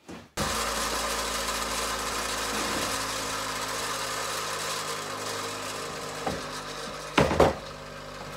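A power tool starts suddenly about a third of a second in and runs steadily, a hiss over a motor hum, as it cuts a length of steel bar. It eases off gradually, and two sharp metal knocks come near the end.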